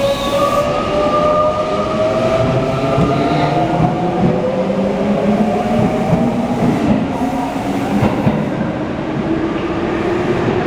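Electric train running, with the motor whine falling gradually in pitch under the rumble and rattle of the wheels on the rails.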